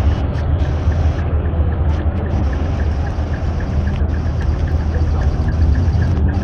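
Big trucks' engines idling with a steady low rumble, with a faint, fast, regular ticking over it.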